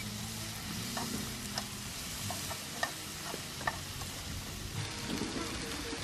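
Pork belly sizzling and crackling in a frying pan, a steady hiss broken by a few sharp clicks.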